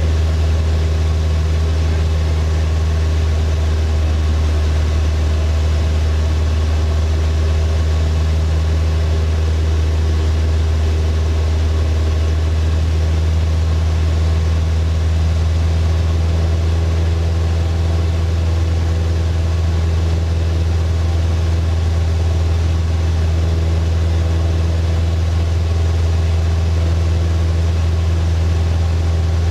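Single-engine floatplane's piston engine and propeller running steadily in cruise flight, a constant low drone heard from inside the cockpit.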